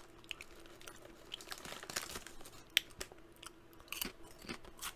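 A person chewing and crunching crisp potato chips close to the microphone: irregular crunches, with one sharper crunch a little past the middle.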